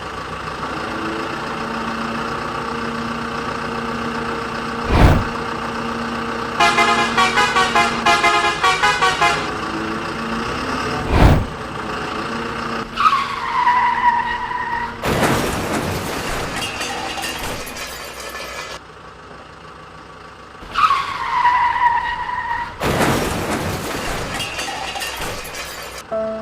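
Toy-vehicle engine and horn sound effects. Under a steady engine hum come two sharp knocks, a quick run of choppy horn toots, and twice a short falling tone followed by a few seconds of loud hiss.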